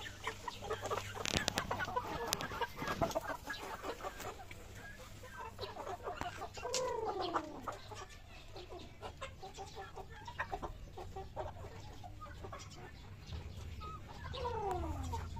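Chickens clucking, with many short calls and two longer calls that fall in pitch, about seven seconds in and again near the end.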